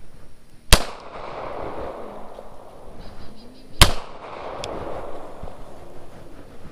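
Two pistol shots about three seconds apart, each a sharp crack followed by a rolling echo that fades over a second or more.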